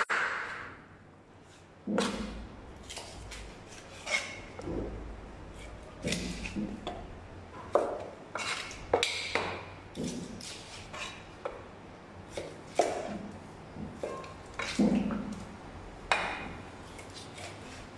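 Kitchen knife cutting a tuna loin into chunks on a wooden cutting board: irregular sharp clicks and knocks as the blade strikes the board, mixed with some duller thuds.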